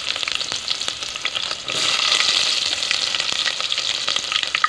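Sliced onions frying in hot oil with mustard and fenugreek seeds in an aluminium pot: a steady sizzle dotted with many small crackles, swelling a little louder about two seconds in. The flame is high.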